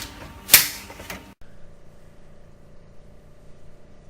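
A single loud, sharp crack from a chiropractic spinal adjustment about half a second in. Then the sound cuts off abruptly and gives way to a faint steady room hum.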